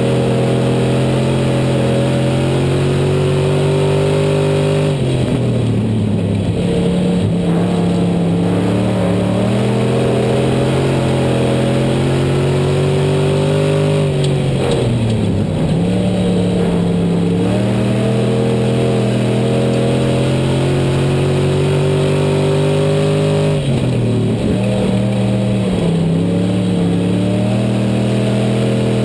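A dirt-track IMCA Southern SportMod race car's V8 engine running hard, heard from on board the car. Its pitch drops three times, about nine seconds apart, as the driver lifts for the turns, then climbs again down each straight.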